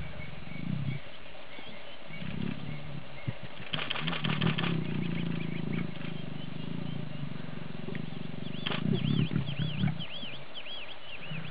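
Lions giving low calls in several bouts, the longest about four seconds in. High repeated chirps come in near the end.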